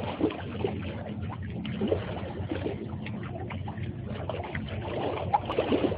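Harbour water lapping and splashing irregularly against rocks and boats, over a low steady rumble.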